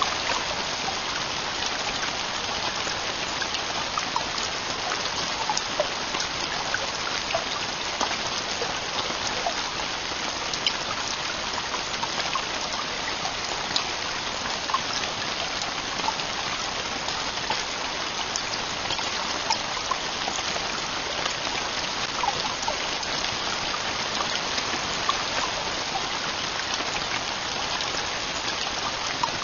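Heavy rain falling steadily on a camping tent roof: a continuous even hiss with many individual drops ticking sharply through it.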